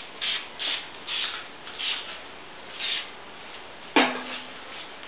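Aerosol spray paint can hissing out green paint in short bursts, five in the first three seconds, with a louder sharp sound about four seconds in.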